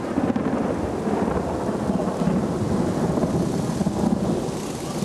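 Low rumble of thunder rolling on steadily after a nearby lightning strike, over the hiss of steady rain.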